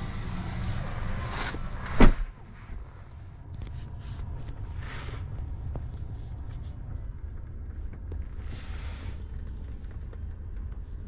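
A Tesla Model 3's door thuds shut once, loudly, about two seconds in, after a second or so of rustling as someone settles into the seat; then only a low steady rumble remains.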